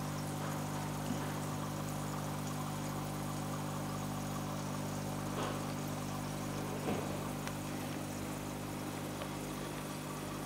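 Aquarium pump humming steadily, a low mains hum, with three faint taps.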